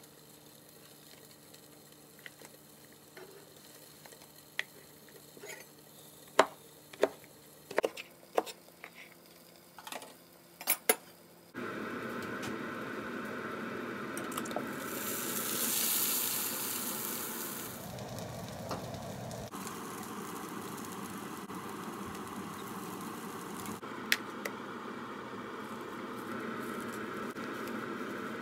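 A few sharp knife chops on a plastic cutting board, then from about eleven seconds in the steady sizzle of egg-coated chicken breast pieces frying in a lidded frying pan, louder for a couple of seconds soon after it starts.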